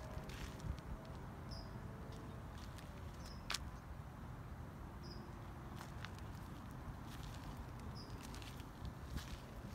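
Backyard ambience: a short high chirp repeating about every two seconds, with scattered light clicks and crackles over a low steady rumble.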